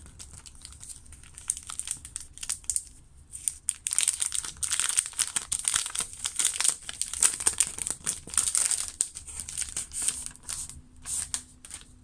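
Shiny plastic wrapping crinkling and rustling as a pack of craft papers is handled and slid out of it. It builds to a dense crackle in the middle, then thins to scattered crinkles near the end.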